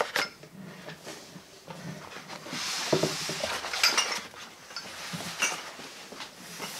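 Yo-yos being handled and set down, knocking against each other and the tray in a few sharp clicks, with rustling of cardboard and cloth as a box of bagged yo-yos is dug through.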